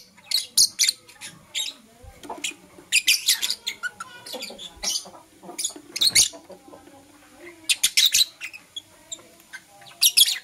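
Lovebirds chirping: short, sharp, high-pitched calls in quick clusters of several, with brief gaps between the clusters.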